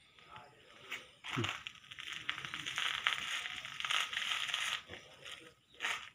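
Crunching and crackling of kucing galak (Acalypha indica) plant material, starting about a second in and lasting a few seconds with many fine crackles.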